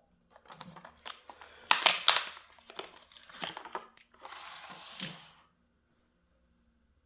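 Hot Wheels blister packaging being handled and torn open: plastic and cardboard crinkling and tearing, with a few sharp cracks about two seconds in, stopping about five and a half seconds in.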